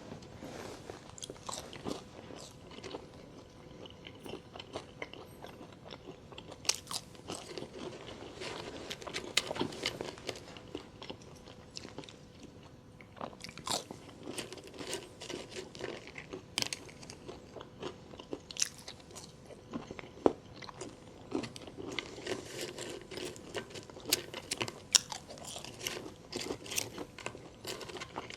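Close-miked eating of Taco Bell food: biting and chewing with many irregular sharp crunches, over a faint steady hum.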